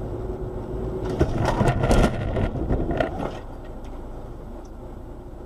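Car collision heard through a dashcam inside the car: steady road and engine noise, then about a second in a sharp impact followed by loud crunching and scraping for about a second, another clatter near three seconds, then quieter running noise.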